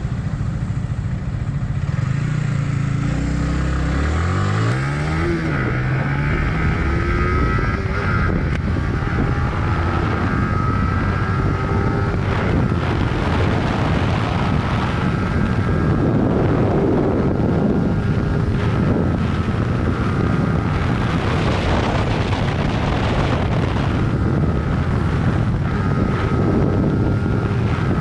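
Yamaha YZF-R15's single-cylinder engine accelerating, its note rising about three seconds in, dropping at a gear change and climbing again, then running steadily at speed under heavy wind noise on the microphone.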